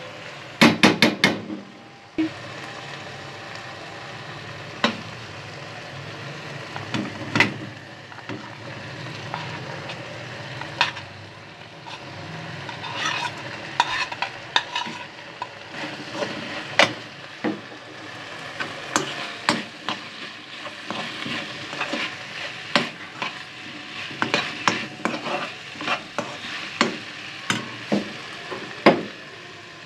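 Stir-frying: a spatula scraping and knocking against a pan as vegetables sizzle in oil, with a quick run of sharp knocks about a second in and scattered clinks throughout. Boiled potato is being stirred into the vegetables.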